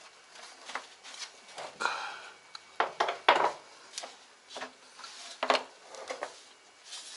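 Irregular clinks, knocks and short scrapes of hand tools and metal screws and parts being handled while a washing machine is taken apart, with two sharper knocks about three seconds in.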